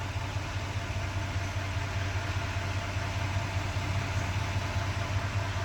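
Duramax L5P 6.6-litre V8 turbo-diesel idling with a steady low hum.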